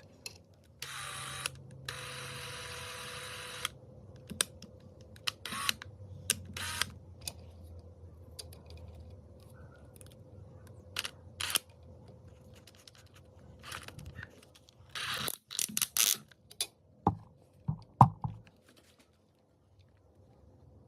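Scattered sharp clicks and short mechanical noises of hand-tool work. A steady whir starts about a second in and lasts about three seconds, and a busier run of clicks and scrapes comes near the end.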